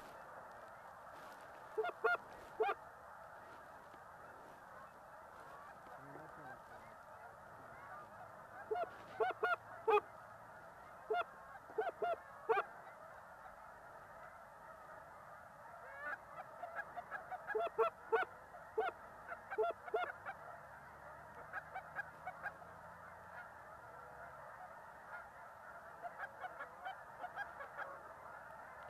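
Flock of geese honking, short calls coming in irregular bunches over a steady background noise.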